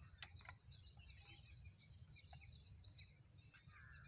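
Faint outdoor ambience: a steady high insect drone with scattered short bird chirps over a low wind rumble on the microphone.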